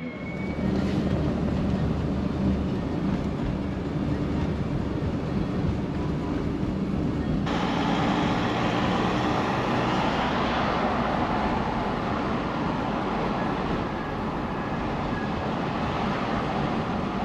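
Steady road and engine noise from inside a moving VW Crafter van, a low rumble with tyre hiss. The sound turns abruptly brighter and hissier about seven seconds in.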